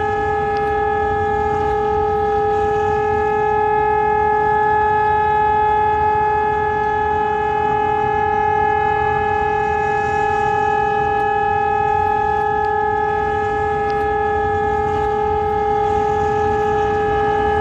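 ECN 1200 civil-defence warning siren sounding one steady, unbroken tone with no rise or fall in pitch, its loudness swelling and easing slightly.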